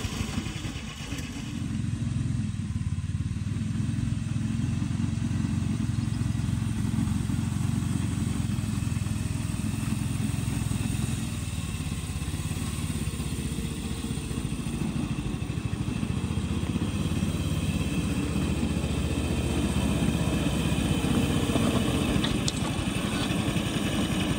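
Small petrol engine of a 7¼-inch gauge 0-6-0 miniature locomotive running steadily as it slowly hauls a loaded flat wagon. It grows a little louder in the last few seconds.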